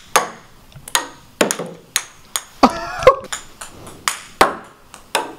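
Ping pong balls bouncing, a quick irregular series of about a dozen sharp, light clicks.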